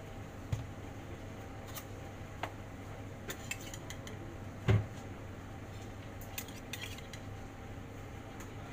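Metal spoon and ceramic bowl clinking and knocking on a stainless steel counter: scattered light clicks and one louder thud about halfway through, over a steady low hum.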